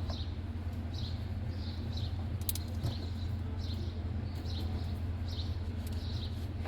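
A small bird chirping over and over, short high chirps about twice a second, over a steady low background hum.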